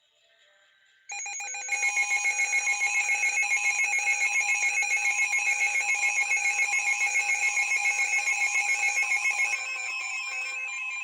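Emergency alert attention signal: an electronic alarm of several high tones pulsing rapidly, about five pulses a second. It begins about a second in and drops to a softer tone near the end.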